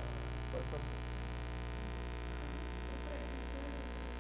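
Steady electrical mains hum with faint, indistinct voices in the background.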